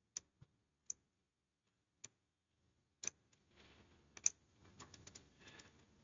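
Faint, scattered clicks of computer keys, about half a dozen spread irregularly, the sharpest a little after four seconds in. Faint soft noise runs between the clicks in the second half.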